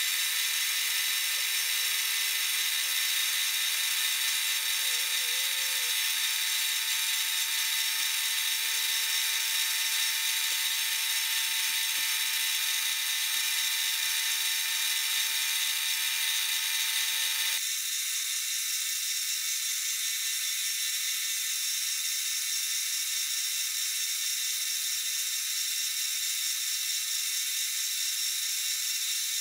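Metal lathe running, turning a brass cylinder while a carbide tool takes a cut: a steady whir with cutting hiss. The sound shifts suddenly a little over halfway through.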